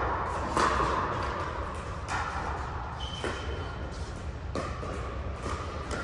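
Pickleball paddles hitting a plastic ball during a rally: sharp pops about a second apart in a large indoor hall, with fainter hits from neighbouring courts.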